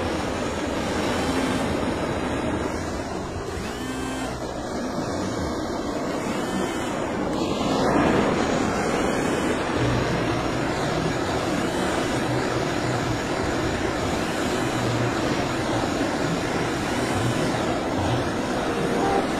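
Handheld gas-canister blowtorch burning with a steady rushing hiss, its flame played over faded black plastic scooter trim to heat-darken it.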